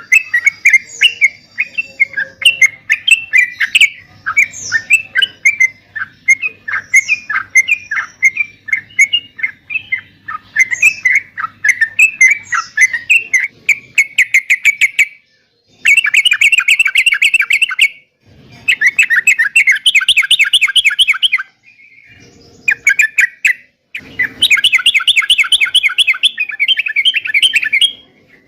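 Yellow-vented bulbul song, the bird-fancier's trucukan. It starts as loud, quick chattering phrases, then from about halfway turns into fast, dense trilled bursts of a few seconds each, separated by short sudden silences.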